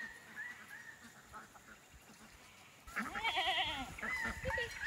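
A goat bleats once about three seconds in: one loud, quavering bleat under a second long. Softer, short high calls sound before and after it.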